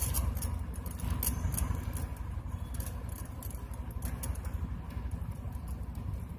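Plastic koodai wire strands clicking and rustling as hands thread and pull the white running wire through the black weave, with scattered small clicks over a steady low hum.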